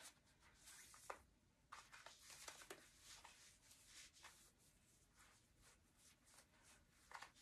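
Near silence, with faint scattered rustles and soft ticks of corset laces and fabric being handled as the laces are tied at the back.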